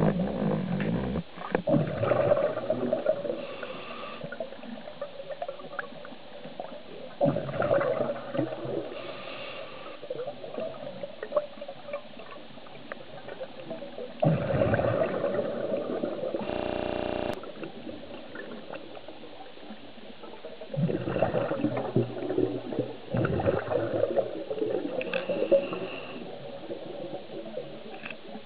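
Scuba diver breathing through a regulator underwater: bursts of exhaled bubbles every six or seven seconds, with a faint hiss of inhalation between them. A short buzzing tone sounds once, about halfway through.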